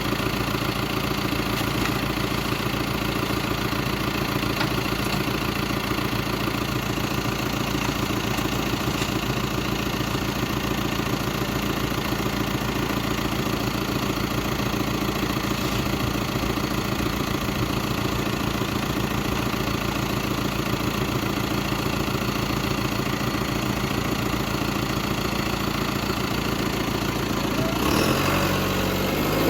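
Engine of a farm machine used for digging potatoes, running steadily at a constant speed. Near the end its note changes and climbs as the engine speeds up.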